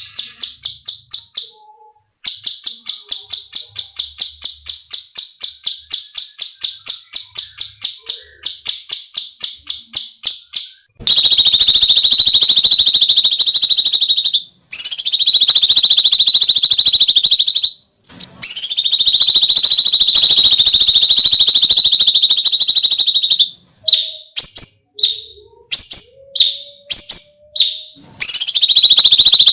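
A cucak cungkok calling. First comes a rapid series of sharp high notes, about five a second, for roughly ten seconds. Then come long, harsh, rasping screeches lasting several seconds each, broken by short chirps near the end.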